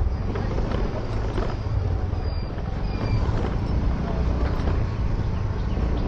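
Yamaha Ray ZR 125 scooter being ridden: a steady low engine hum under road and wind noise.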